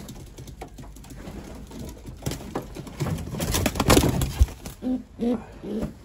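Domestic pigeons cooing in a loft. A loud burst of flapping and scuffling starts about two seconds in and peaks near four seconds as a pigeon is grabbed by hand.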